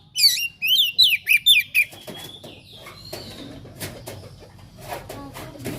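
Oriental magpie-robin singing a fast run of loud, sharply sweeping whistled notes for about two seconds, then breaking off. Quieter clicks and rustles follow.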